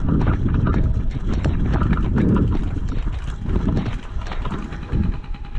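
Low rumbling wind and handling noise on the microphone, with irregular scattered clicks and knocks. It eases off slightly toward the end.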